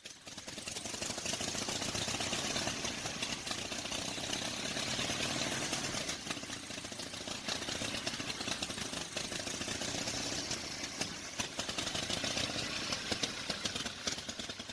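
Vintage 1911 Indian motorcycle engine running at idle with a rapid, uneven firing beat; it fades in at the start and tapers off near the end.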